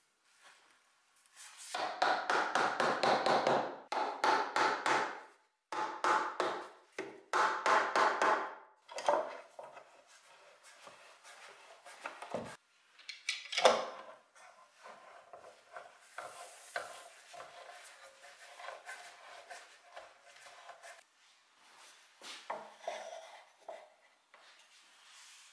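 Workshop noises from gluing and clamping a pine rocking horse. First come several one-to-two-second runs of rapid rubbing or scraping strokes on wood, about ten a second. Then a single sharp knock, followed by lighter clicks and taps of clamps and wooden parts being handled.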